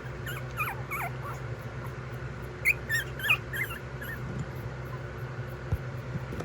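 Jack Russell–Pomeranian puppies squeaking and whining in short, high-pitched calls that bend up and down. The calls come in two clusters, about a second in and around three seconds in, over a steady low hum.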